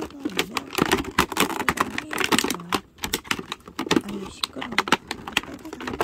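Clear plastic packaging film crackling and crinkling as a boxed toy cooking set is gripped and turned in the hand, with many quick, irregular crackles.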